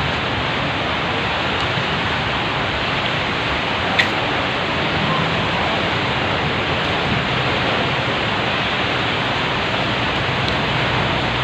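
Steady hiss of heavy rain, with one brief tick about four seconds in.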